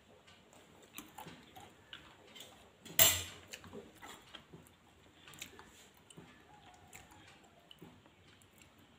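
A metal ladle stirring milky payasam in a stainless steel saucepan: faint scrapes and clicks against the pan, with one sharp metallic clink about three seconds in.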